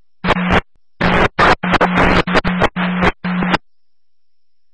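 Police scanner radio crackling in about eight short, choppy bursts of static over three and a half seconds, each with a low steady hum underneath: a broken-up transmission.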